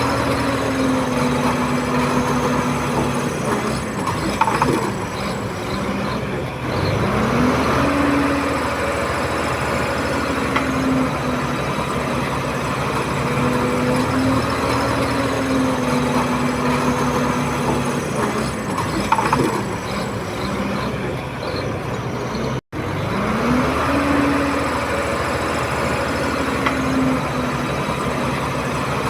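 Komatsu D31P bulldozer's diesel engine running steadily under load. Twice its pitch drops and then climbs back up as the engine revs. A few short metallic clanks are heard.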